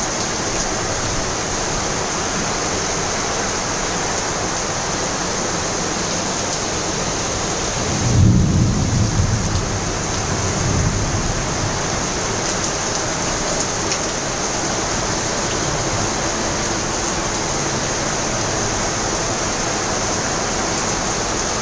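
Heavy monsoon rain pouring steadily. About eight seconds in, a low rumble of thunder swells for a few seconds.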